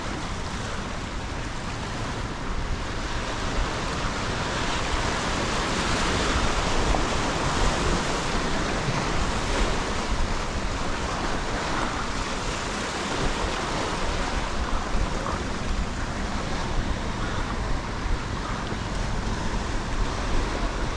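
Steady wash of ocean surf breaking against jetty rocks, with wind rumbling on the microphone.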